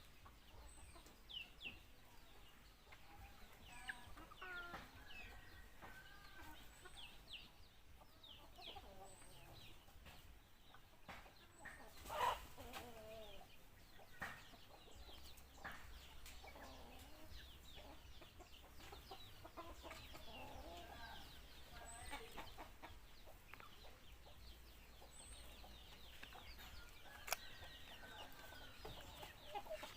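Faint fowl clucking and short chirps, scattered and quiet, with a couple of soft knocks, one about twelve seconds in and one near the end.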